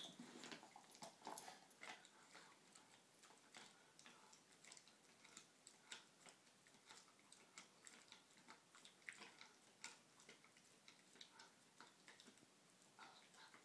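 German Shorthaired Pointer chewing a treat: faint, irregular clicks and crunches of teeth on the treat, several a second.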